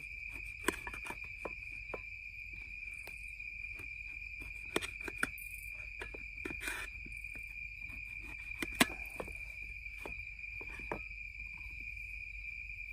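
Steady high chirring of night insects, over scattered sharp clicks and taps of a knife cutting prickly pear pieces against a metal camp pan. The loudest click comes near the end.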